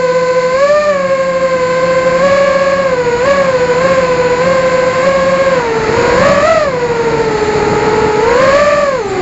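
FPV drone's brushless motors whining steadily, the pitch wavering up and down with throttle, sagging lower about two-thirds of the way through, then dropping sharply at the very end.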